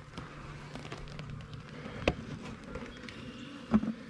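Sharp knocks and clicks of wooden beehive parts being handled and pried at, two of them loud, about two seconds in and near the end, over a faint low hum.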